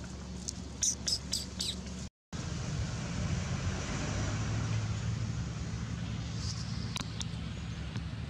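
Steady low rumble of road traffic, with a quick run of four or five short high chirps about a second in and two more near seven seconds. The sound drops out completely for a moment about two seconds in.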